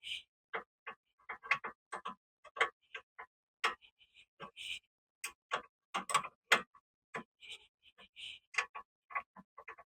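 Irregular series of sharp clicks and light knocks, a few a second, with brief higher-pitched scraping bursts in between, typical of hand-tool work on a car.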